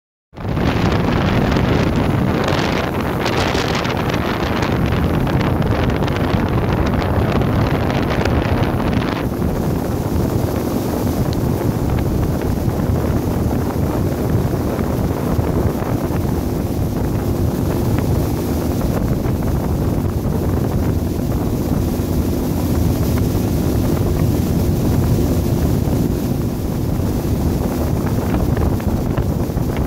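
Heavy wind buffeting the microphone on a fast-moving motorboat, over the steady drone of its engine. The high hiss eases about nine seconds in, leaving the low rumble and engine hum.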